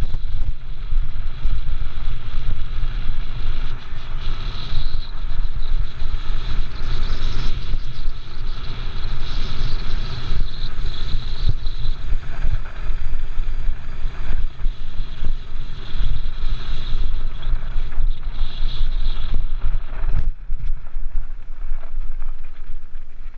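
Mountain cart rolling downhill on a gravel road: a steady rumble and rattle of the tyres on loose gravel mixed with wind, muffled by the GoPro's closed waterproof housing. The higher rattle thins out about twenty seconds in.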